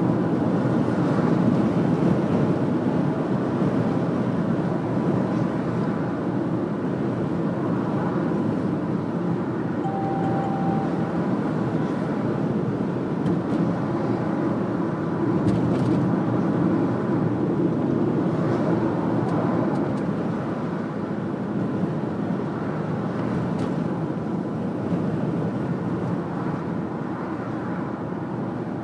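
Steady engine and road noise of a car being driven, with a short faint beep about ten seconds in.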